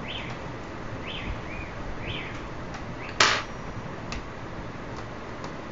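A few short bird chirps about a second apart, then, a little past halfway, one sharp clack of a metal hand tool being set down on the laptop, followed by a few faint ticks.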